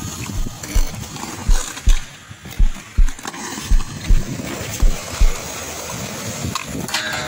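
Background music with a deep kick drum beat, the kicks coming in pairs about once a second, stopping about five seconds in.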